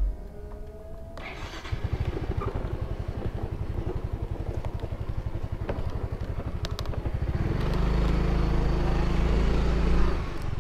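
A small motor scooter's engine starts about a second in and runs with a fast, even putter. About three-quarters of the way through it revs up louder as the scooter pulls away.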